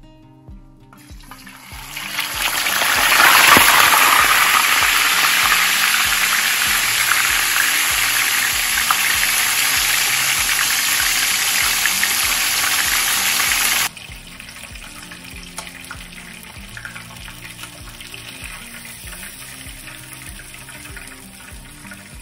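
A whole opaleye fish going into hot oil in a frying pan: about a second in, the oil starts sizzling hard and builds to a loud, steady fry within a couple of seconds. Near fourteen seconds the sizzle drops suddenly to a much quieter fry that carries on.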